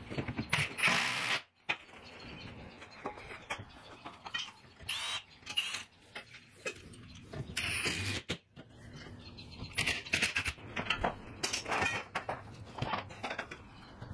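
Cordless impact driver driving screws through the welding table's steel back plate into the wall studs, in several short bursts with pauses between.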